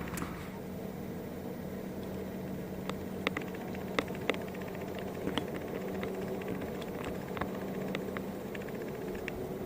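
Sharp knocks, several of them a few seconds in, from a canoe paddle striking the hull, over a steady low hum.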